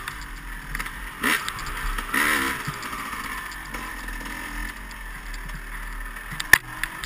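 Dirt bike engine under way, its revs surging up and down as the bike is ridden along a rough trail. A single sharp knock comes near the end.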